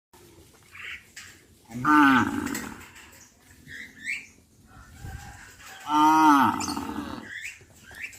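Cattle mooing: two loud, drawn-out moos, one about two seconds in and the other about six seconds in, each rising and then falling in pitch.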